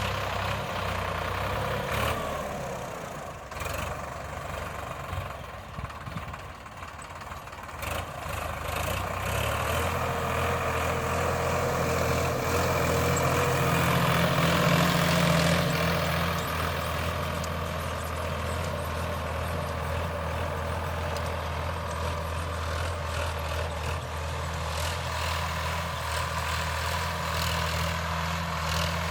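Sonalika DI 745 III tractor's diesel engine running while ploughing dry land. Its note dips for a few seconds near the start, then picks up and runs steadily, loudest around the middle.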